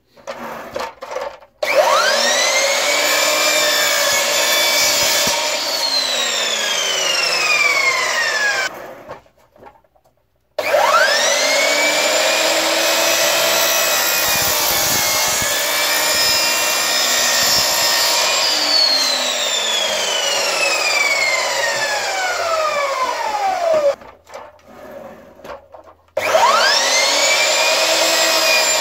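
Peugeot sliding compound mitre saw started three times. Each time the motor whine rises quickly to full speed while the blade cuts through a thin wooden panel. After the first two cuts the pitch falls steadily as the blade winds down, and the third run is still going at the end.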